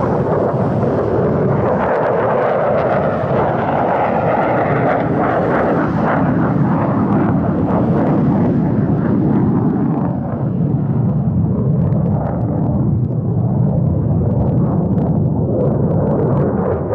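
Fighter jet engine noise, loud and continuous, with a brief dip about ten seconds in.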